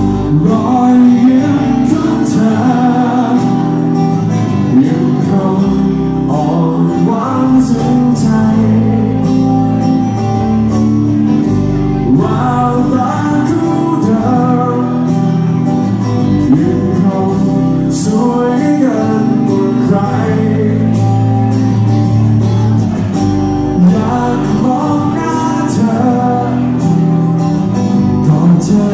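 Live band playing a song with singing over drums and electric guitars.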